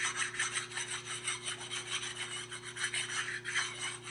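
Sharpening stone rubbed back and forth in quick, even strokes across the flat steel back of a grinding-wheel dressing tool, stoning it to make sure it is flat and free of burrs.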